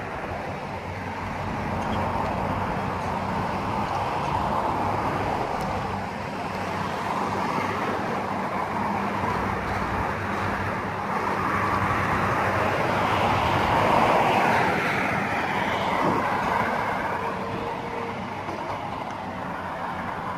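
Steady road traffic noise from vehicles passing on a dual carriageway, swelling loudest about two-thirds of the way through as a vehicle goes by, over a faint low hum.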